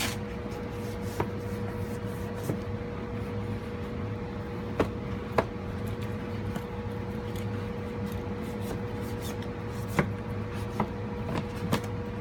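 Books being shifted and tipped on wooden bookshelves: scattered light knocks and rubbing, over a steady hum.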